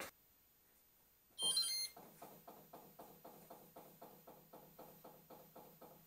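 GE GeoSpring hybrid heat-pump water heater powering up for the first time: a short electronic beep from its control panel about a second and a half in, then a steady run of soft pulses, about four a second, as the unit boots up.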